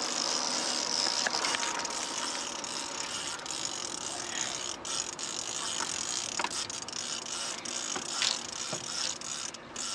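Fishing reel on a heavy snagging rod being cranked steadily, its gears ratcheting and whirring as a hooked fish is reeled in.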